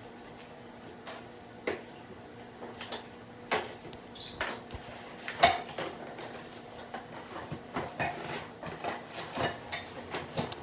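Heavy metal parts of a log stand clinking and knocking together as they are handled: a dozen or so irregular clanks, the loudest about halfway through.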